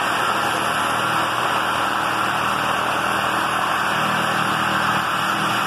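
Handheld electric sheet metal shear running steadily as its blades cut through thin-gauge sheet steel.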